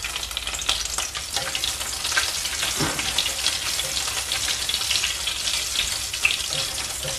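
Fresh curry leaves and dried red chillies sizzling and crackling in hot coconut oil, stirred with a ladle: the tempering step of a Kerala thoran.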